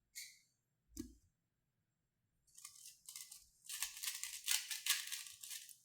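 A 3x3 speedcube being turned very fast in a timed solve: dense, rapid plastic clicking and rattling that starts about two and a half seconds in and builds. Before it there is a short hiss and a soft thump about a second in.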